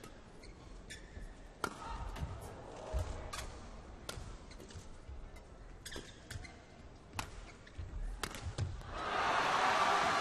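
Badminton rally: sharp racket strikes on the shuttlecock and shoes squeaking on the court floor. About nine seconds in, the arena crowd's noise swells loudly as the rally ends on an unforced overhead error.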